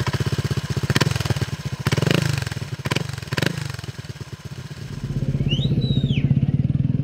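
Motorcycle engine idling with an even, rapid beat, broken by a few sharp clicks and short swells in the first half. It runs steadier and louder in the last couple of seconds. A brief high glide rises and falls about five and a half seconds in.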